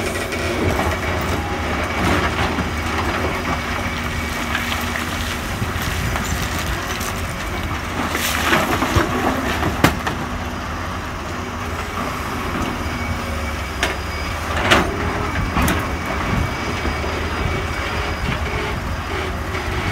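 Komatsu PC200 excavator's diesel engine running steadily as it loads broken rock into a dump truck, with rocks clattering and clunking into the steel truck bed a few times, loudest about halfway through and again about three-quarters through.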